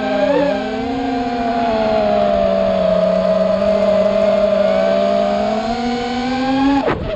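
Electric motors and propellers of a small radio-controlled aircraft whining steadily in flight. The pitch sags a little, climbs again, and dips sharply for a moment near the end.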